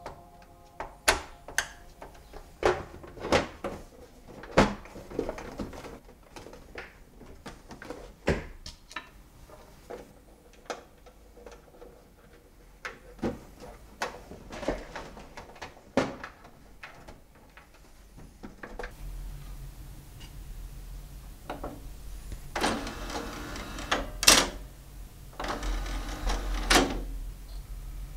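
Scattered clicks and knocks of hands handling and fitting parts in a Marantz CD-40 CD player's chassis and its sheet-metal cover as it is reassembled and screwed shut. Near the end come a few longer scraping sounds.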